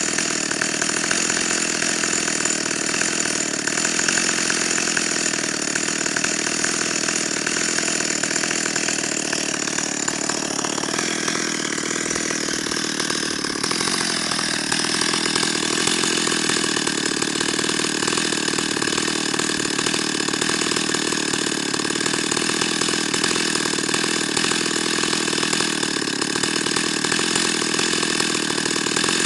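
Stihl 028 Super two-stroke chainsaw idling steadily.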